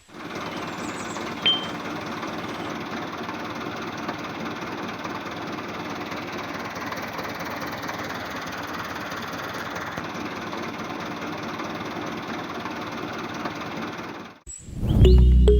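A steady mechanical rattle of a small machine running, with one short sharp click about a second and a half in. It cuts off abruptly near the end, and music starts.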